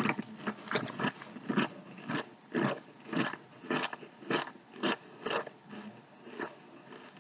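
Chewing SunChips: a steady run of crisp crunches, about three a second, growing fainter toward the end.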